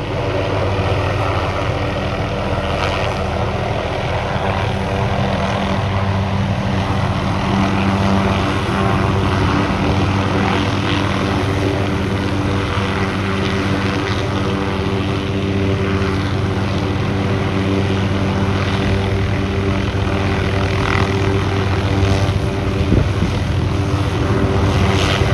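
Light helicopter's main rotor and engine running steadily as it hovers low and sets down on its landing pad.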